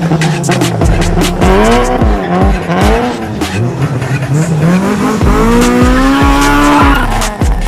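Car engine revved hard again and again, its pitch climbing and dropping repeatedly, mixed with tyre squeal.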